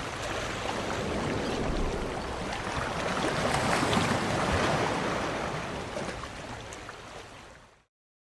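Rushing water and wind noise from a moving boat, an even, noisy rush with heavy low rumble. It cuts off suddenly near the end.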